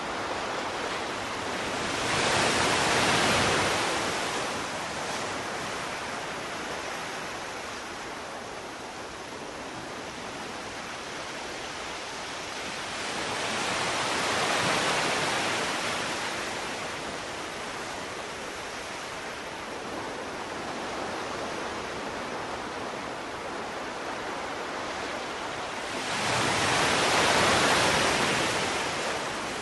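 Ocean surf: a steady wash of waves that swells up and falls back three times, roughly every twelve seconds.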